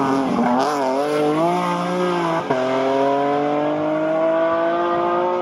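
Rally car engine under hard acceleration. The revs waver over the first couple of seconds, then there is a quick upshift about two and a half seconds in. After that the revs climb steadily in one gear until a break near the end.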